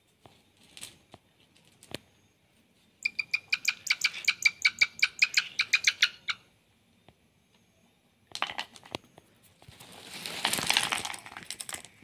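Hawk calling: a rapid series of about twenty sharp, evenly spaced notes, about six a second, for some three seconds. Near the end comes a two-second burst of rustling noise.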